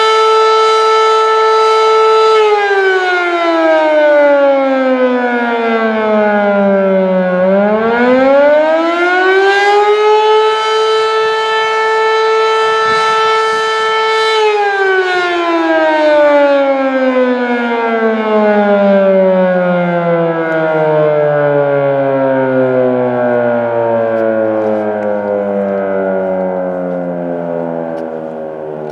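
Fedelcode Model 7 fire siren sounding the attack signal. A loud steady tone holds, then sinks in pitch for about five seconds and climbs back to the same tone, holds again, and from about halfway through winds down in a long, slowly falling glide.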